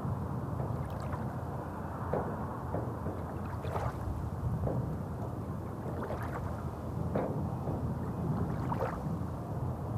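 Small waves lapping on a pebble lakeshore: frequent brief, irregular splashes over a steady low wash.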